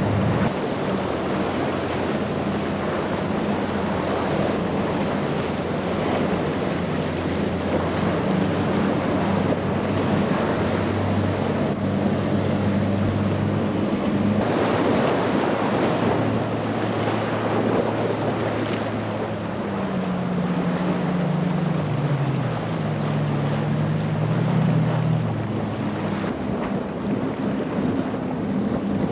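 High-horsepower outboard engines on passing powerboats running at speed, a steady drone mixed with the rush of spray and breaking waves, and wind buffeting the microphone. About two-thirds through, the engine note drops and wavers.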